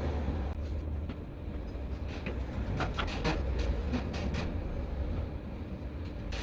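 Steady low rumble with a few sharp clicks and knocks scattered through the middle.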